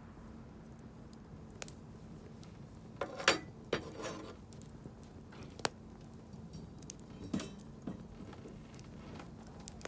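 Wood campfire crackling, with scattered sharp pops and a louder burst of crackles about three seconds in.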